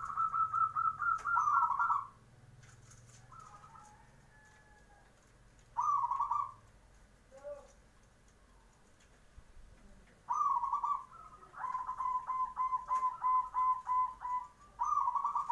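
Zebra dove (perkutut) cooing: short rolling coo phrases at the start and around six and ten seconds in, then a run of quick repeated notes, about four a second, before a last phrase at the end.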